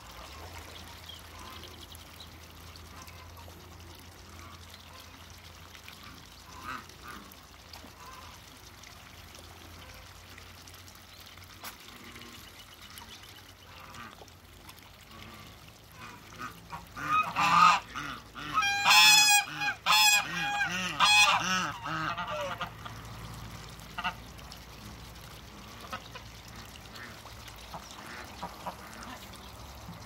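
Waterfowl calling: a loud run of repeated, pitched calls lasting about five seconds, a little past the middle, over a quiet background with a low steady hum.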